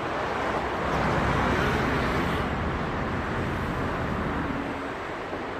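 Road traffic: a steady rush of passing vehicles, swelling about a second in as one goes by close.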